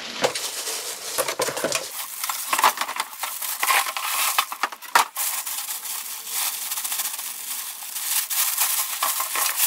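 Clear plastic packaging bag crinkling and rustling as it is handled and pulled around a boxed stainless-steel grill, with one sharp knock about halfway through.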